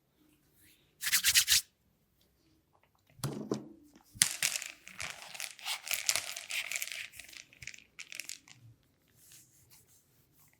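Hands rubbing and scrunching through hair during a head and neck massage: a short, loud rustling burst about a second in, then a longer run of crackly rubbing with a sharp click a little after four seconds in, fading out near the end.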